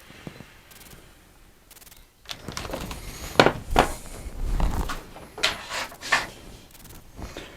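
Workpieces and tools being handled on a bench: after about two quiet seconds, a run of knocks and clunks, the loudest a little over three seconds in.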